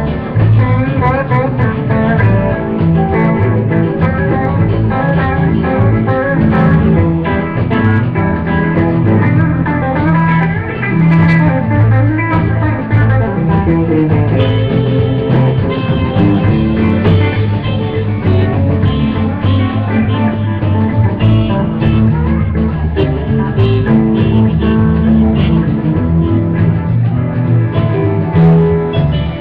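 Live country band playing an instrumental passage, led by guitar over bass, drums and keyboard; the texture brightens about halfway through.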